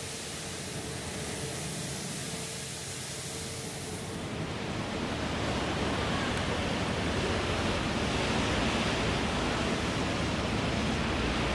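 Steady rushing outdoor noise, with no distinct event in it. It grows louder and fuller about four seconds in.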